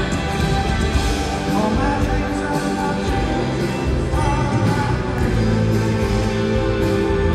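Live rock band playing a ballad, with electric guitars, drums and a violin line, recorded from within the arena audience.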